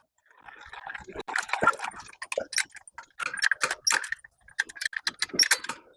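Metal parts of a hog drop trap being handled, an irregular run of light clicks and rattles.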